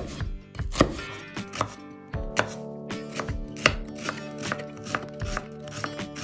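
Chef's knife cutting a red onion on a wooden cutting board: irregular knocks of the blade through the onion onto the board, about two or three a second.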